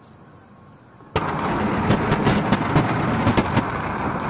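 Explosive demolition of a high-rise building: the blast arrives suddenly about a second in, followed by a rapid string of sharp cracks for about two seconds, over a loud, steady rumble as the tower comes down.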